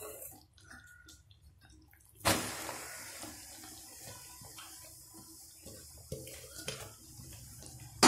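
Grated pumpkin tipped into boiling jaggery syrup in a steel pan about two seconds in, setting off a sudden hiss that slowly dies down to a steady simmering sizzle, with faint pops of the syrup before it. A sharp knock against the pan comes right at the end.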